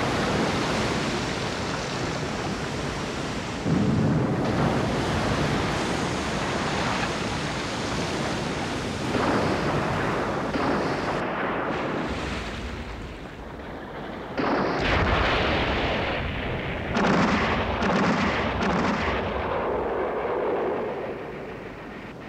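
Naval battle sounds: a continuous rumble of explosions and gunfire, broken by several sudden heavier blasts of bombs and anti-aircraft shells.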